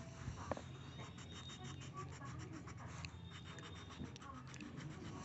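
Green coloured pencil scratching on paper in rapid back-and-forth shading strokes, with a light tap about half a second in.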